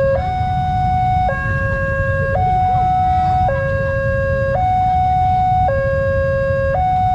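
Railway level-crossing warning alarm sounding: an electronic two-tone signal switching between a higher and a lower held tone about once a second, warning road users that a train is coming while the barrier is down. A steady low rumble runs underneath.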